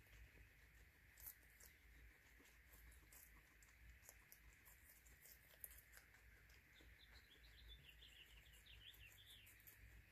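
Faint crunching clicks of guinea pigs chewing dry pellets, over a steady low hum. A quick run of high chirping notes comes about two-thirds of the way in.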